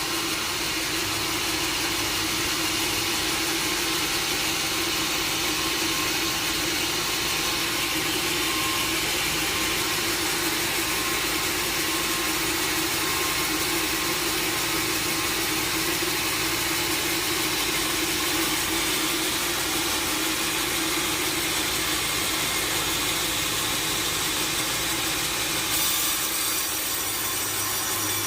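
Sawmill saw and its machinery running with a steady, continuous noise as timber is sawn; the high hiss shifts slightly near the end.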